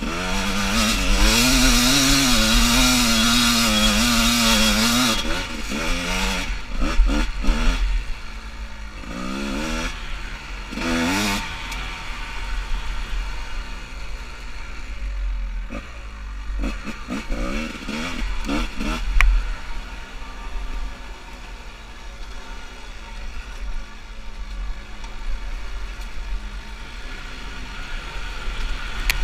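2001 Kawasaki KDX200 two-stroke dirt bike engine with an FMF expansion pipe, pulling hard at high revs for the first five seconds. It then revs up and drops back in short throttle bursts a few times before settling to lower revs.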